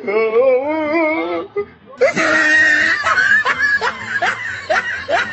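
People laughing and shrieking. A long wavering cry comes first, then, after an abrupt change about two seconds in, a mix of laughter and screams with many short rising cries.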